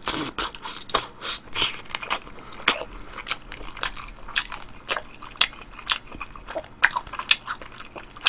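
A person chewing a mouthful of sauced battered fried pork (tangsuyuk): a run of short, irregular crunches and mouth smacks, about one or two a second.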